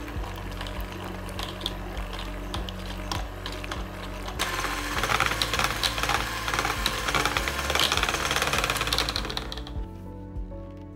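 Electric hand mixer running, its beaters whipping butter and dulce de leche in a bowl. It gets louder about four seconds in and stops near the end, over background music.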